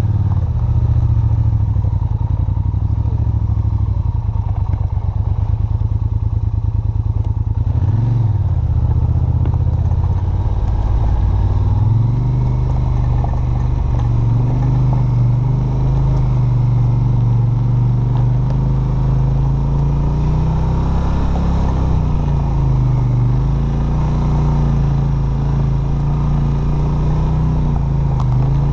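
ATV engine running as the machine drives along a dirt trail. The engine note rises and falls with the throttle, climbing about twelve seconds in and dipping and rising again later.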